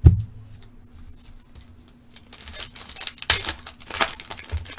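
A thump, then the shiny foil wrapper of a football card pack crinkling and crackling as it is torn open, starting about two seconds in and running dense to the end.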